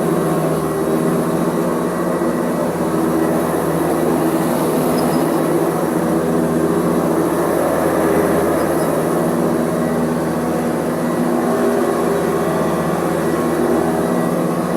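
Hoover Custom Convertible U4121 upright vacuum cleaner running steadily on a shag rug, its agitator stuck at the shag height setting. A steady motor hum over rushing air, the tone shifting a little midway.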